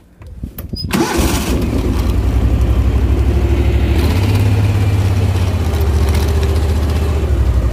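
A vehicle engine is started about a second in and then runs steadily with a fast, even low pulse.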